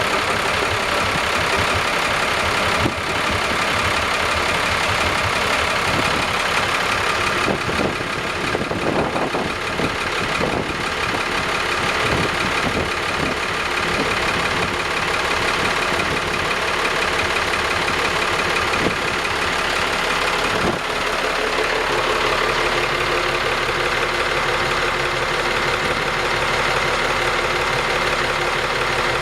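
Engine of a Nissan Sun Cat 8.8X boat running steadily at idle, with a low even pulse; its sound changes slightly about two-thirds of the way through.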